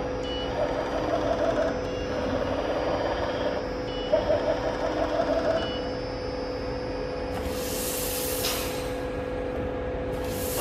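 Industrial plastics-processing machinery running with a steady hum, two stretches of rapid rattling, and two loud bursts of air hiss, one about seven seconds in and another near the end.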